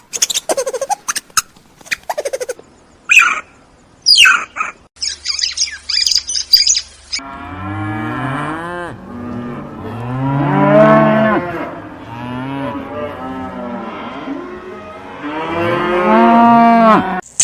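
Cow mooing: a run of long, drawn-out moos fills the second half, after a few seconds of short bird chirps and squawks.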